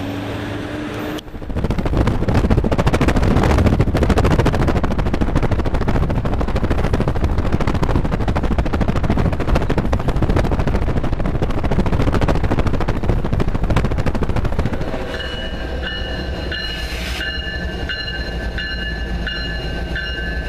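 CSX coal train rolling by. For most of the clip it is a loud, dense rumble mixed with road and wind noise, heard while the coal hoppers are paced from a moving car. After a cut about fifteen seconds in, the train's GE diesel locomotives run past, quieter, with steady high tones over them.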